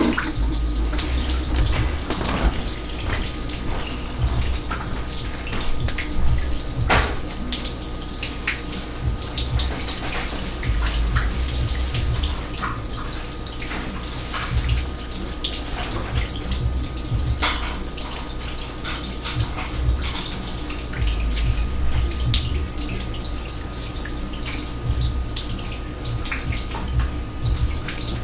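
Water from an overflowing kitchen sink running and splashing steadily, with many small splashes and drips.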